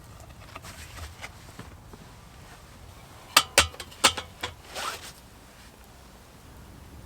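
A few sharp clicks, then a short rasp rising in pitch about five seconds in: a zip being pulled.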